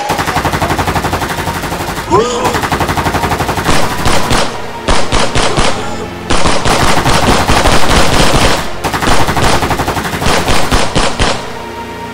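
Rifles firing on full automatic in long, rapid bursts of several seconds each, with short breaks between them, stopping near the end. Two brief rising shrieks sound near the start and about two seconds in.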